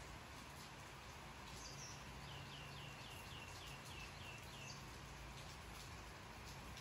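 A faint run of about nine short chirps, each falling in pitch, about four a second, from a small animal, over a low steady hum.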